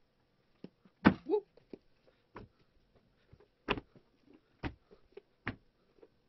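A handful of short, sharp knocks and taps from things being handled on a desk, irregularly spaced about once a second. The loudest comes about a second in, followed by a brief squeaky glide.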